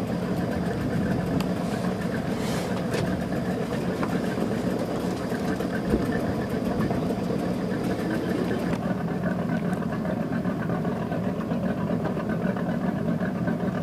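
Tour boat's engine idling, a low, even hum, with one brief knock about six seconds in.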